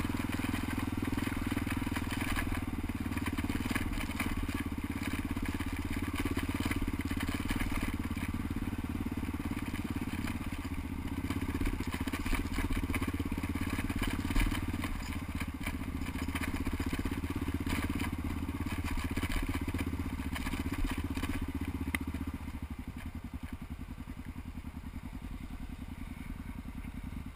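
Dual-sport motorcycle engine running under light throttle on a rough, rocky trail, with crunching and rattling from the tyres and bike over stones. About 22 seconds in it drops to a steady idle as the bike comes to a stop.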